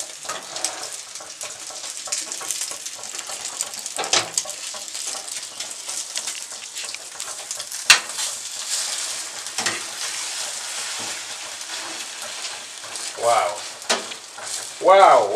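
Egg sizzling as it fries in a metal frying pan, with metal utensils scraping and tapping the pan now and then; the sharpest knock comes about eight seconds in. A voice is heard briefly near the end.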